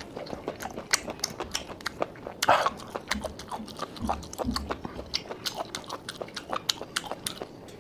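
Close-miked eating of steamed apple snails: chewing and wet mouth sounds with many short sharp clicks, and a brief louder burst a couple of seconds in.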